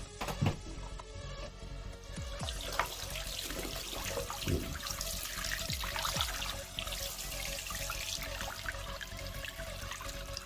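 Tap water running and splashing in a sink basin as a central-heating magnetic filter is rinsed out by hand, starting a couple of seconds in, with a few knocks of the filter parts against the basin.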